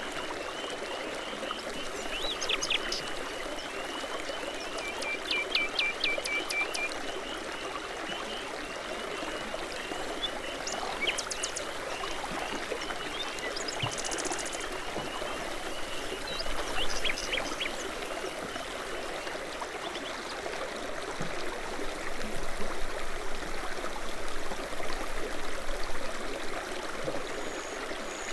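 Babbling brook running steadily over stones, with songbirds chirping and singing now and then above the water.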